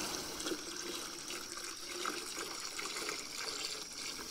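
Water pouring steadily into a 5-gallon bucket as it is filled for a camp shower.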